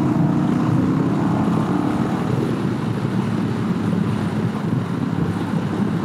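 Honda Rebel 1100 DCT parallel-twin engine running under way, with road noise. Its note drops slightly over the first couple of seconds, then holds steady.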